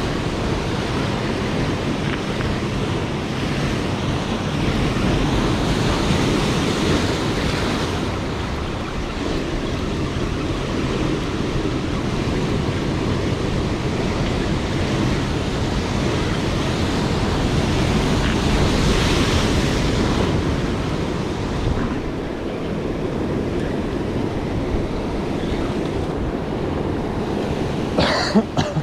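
Ocean surf breaking and washing over rocks, with wind buffeting the microphone; the wash swells twice, about a quarter of the way in and again about two-thirds in. A brief sharp sound comes just before the end.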